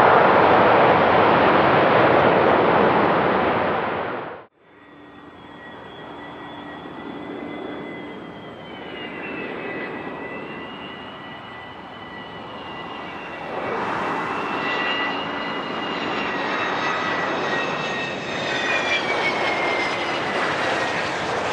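Business jet engines: loud, even jet noise from a Bombardier Global Express XRS, cut off abruptly about four seconds in. Then a Gulfstream G600's turbofans whine with steady high tones, growing louder near the middle.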